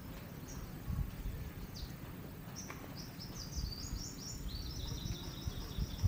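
Wind gusting on the microphone with a bird chirping high overhead, breaking into a fast run of repeated high notes from about halfway through.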